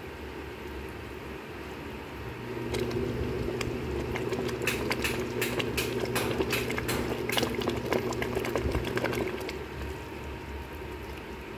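Pot of chicken sotanghon soup simmering while a wooden ladle stirs and scoops the broth, making liquid slurps and a run of sharp clicks and pops in the middle. A steady low hum comes in about two seconds in and stops about nine seconds in.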